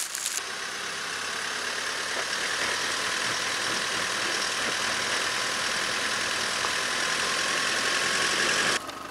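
Chevrolet Colorado ZR2 pickup in four-wheel-drive low, its engine under load while the tyres, at 34 psi, spin without traction on a leaf-covered dirt slope. A steady hissing rush builds slowly and cuts off suddenly near the end.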